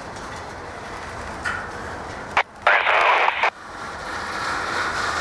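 Steady rumble of a passing freight train, then about two and a half seconds in a radio squelch click and a loud burst of radio static lasting under a second, as from a railfan's scanner tuned to railroad traffic.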